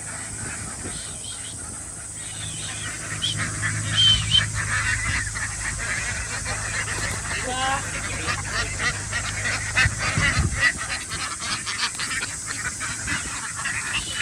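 A large flock of farm ducks quacking and calling over one another, growing denser and louder about four seconds in and keeping up a constant chatter.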